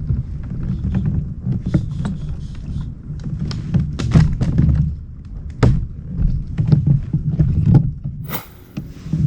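Wind rumbling on the microphone, with scattered knocks and clatter on a fishing kayak, and a short hiss about eight seconds in.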